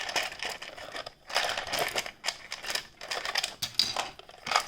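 Small plastic toy figures clattering and rattling against a hollow plastic toy shark as they are tossed out of its belly, in several quick bursts of clicks.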